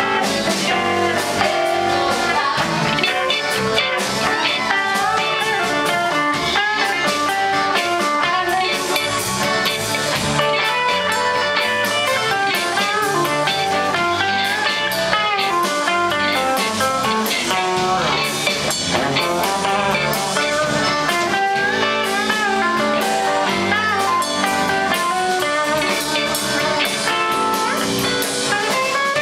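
A live blues band playing, with an electric guitar taking the lead line over drum kit and bass. The guitar's notes bend up and down.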